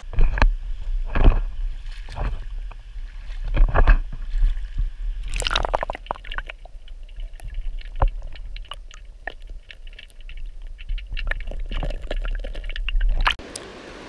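Muffled sloshing and gurgling of river current heard through a camera held under the surface, with a steady low rumble and irregular knocks and splashes as a smallmouth bass is released by hand. The underwater sound cuts off sharply near the end.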